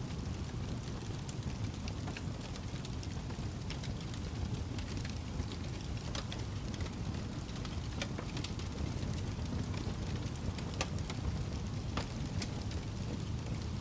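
Wood fire burning in a fireplace: a steady low rumble of flames with irregular sharp crackles and pops.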